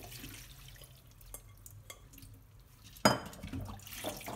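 Glass bowl and stainless steel colander handled in a steel sink as soaked harusame noodles are tipped from the bowl into the colander: a few small clinks, then one sharp clank about three seconds in, followed by water draining.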